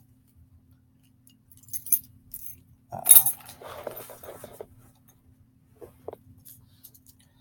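A bunch of keys jingling and clinking as it is handled and set down, with a loud clatter about three seconds in followed by a second or so of lighter clinks.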